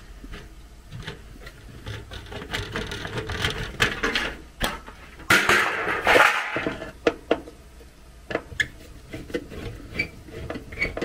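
Sheet-metal furnace door panel being pulled off and set aside: scattered clicks and knocks of metal being handled, with a louder scraping rustle lasting about a second, about halfway through.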